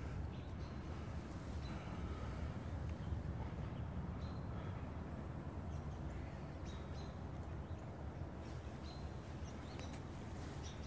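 Outdoor ambience: a steady low rumble with faint, scattered bird chirps every few seconds.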